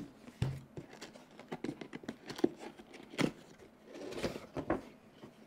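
Cardboard retail box with a clear plastic window being handled and opened by hand: irregular taps, clicks and scraping rustles of cardboard and plastic.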